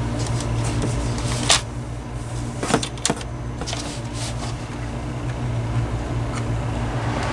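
Steady electrical hum from the Honeywell HW-690 window fan's motor, with a few sharp clicks from about one and a half to three seconds in as the exposed electronic speed-control slide is handled. Near the end the blade spins up.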